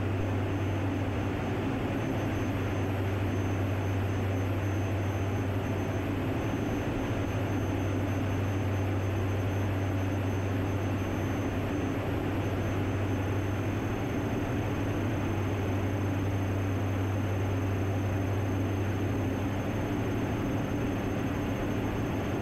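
Cabin drone of a Diamond DA-42NG Twin Star in flight: its two Austro turbodiesel engines and propellers running steadily, a constant low hum over a hiss of airflow.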